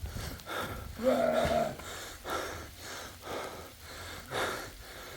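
A person breathing hard in short, ragged gasps, about two a second, with one brief voiced sound about a second in.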